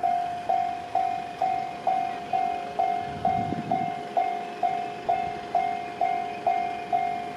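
Japanese railway level crossing warning bell ringing, a single pitched ding repeated about twice a second, each strike dying away before the next. A brief low rumble comes about three seconds in.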